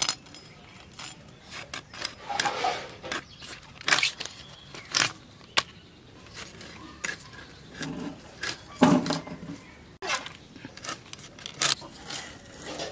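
A large river fish being cut into steaks on a bonti, an upright curved blade held down at the cutter's feet. The blade gives irregular sharp clicks and short scrapes as it cuts through the fish.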